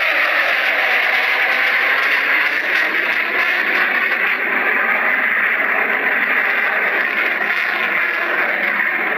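Steady rushing jet noise from a Sukhoi Su-30MKI's twin Saturn AL-31 turbofan engines, heard from the ground as the fighter manoeuvres overhead.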